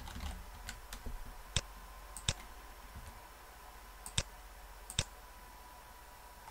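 Computer mouse clicks and keyboard keystrokes: a few light taps in the first second, then four sharp, separate clicks spread through the rest, over a faint steady tone.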